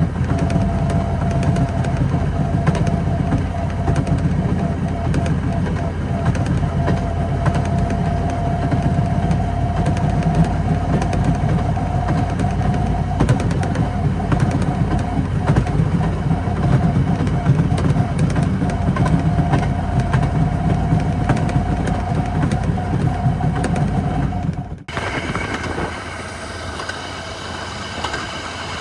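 Rail motorcar (speeder) running along the track: a steady engine and wheel noise with a constant whine and a scatter of clicks. About 25 seconds in it cuts abruptly to a quieter steady engine sound.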